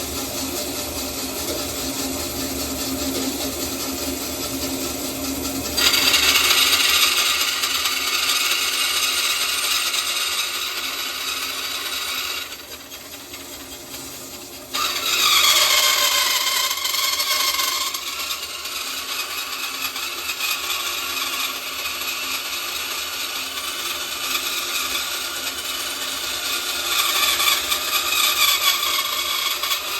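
Treadmill-motor-driven wood bandsaw cutting 5 mm aluminium plate. The saw runs steadily at first. About six seconds in, a loud, high-pitched rasping screech starts as the blade bites into the metal. It drops back briefly around the middle, then the cutting resumes and grows louder again near the end.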